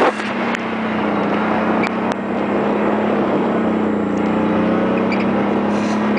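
Golf cart driving along, its motor giving a steady hum over the rush of wind and wheels, with a few small clicks or rattles in the first couple of seconds.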